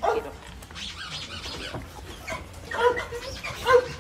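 Dogs barking in short, separate calls, the loudest two about three seconds in and just before the end.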